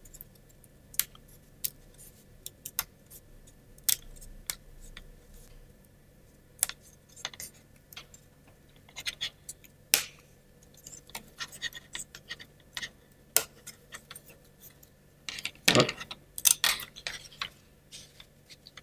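Sharp clicks and snaps of thin laser-cut plywood as a large fretwork part is pressed out of its sheet and handled, with a louder cluster of wooden knocks near the end.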